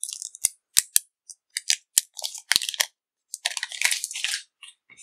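Thin plastic protective film crinkling, with a run of sharp plastic clicks, as a small power adapter is unwrapped, handled and set into a cardboard box tray. The longest crinkling comes about three and a half seconds in.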